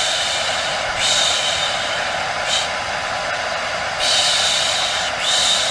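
Hair dryer blowing as white noise for putting a baby to sleep: a steady airy hiss with a brighter, sharper surge about every second to second and a half.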